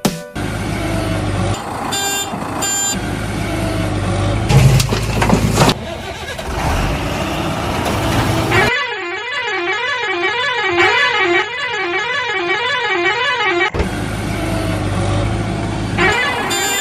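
Vehicle engine rumble with two short horn honks, then a siren-like tone wavering up and down for about five seconds, then the engine rumble again with more honks near the end. These are toy-vehicle or cartoon vehicle sound effects.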